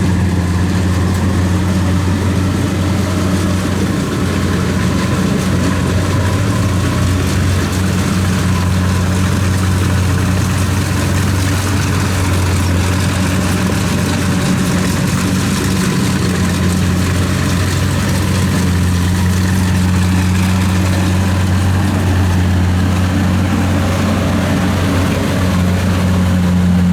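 Kubota DC-70 rice combine harvester's diesel engine running at a steady speed, a constant low drone over the clatter of the machine.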